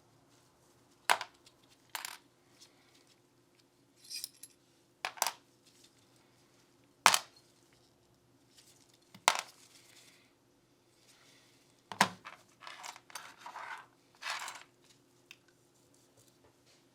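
Small Glock pistol parts being handled and set down on a bench, giving half a dozen sharp, irregular metallic clicks and clinks with some softer scraping and rustling between them.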